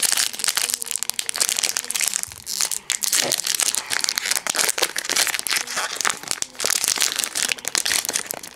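Foil Pokémon booster pack wrapper crinkling and crackling as it is torn open and handled by hand, in a dense run of small crackles with a short lull about two and a half seconds in.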